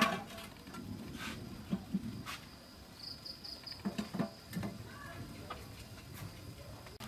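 A metal lid clanks down onto a wok at the very start. Then a quiet stretch with a steady high insect trill that pulses briefly a little past the middle, and a few faint clicks and soft knocks.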